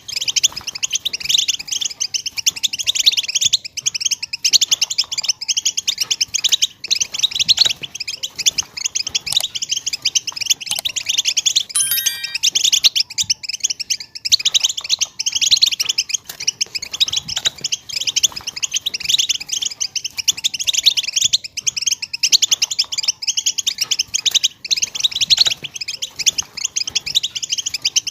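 European goldfinch singing a continuous, fast twittering song: a dense unbroken run of high chirps and trills.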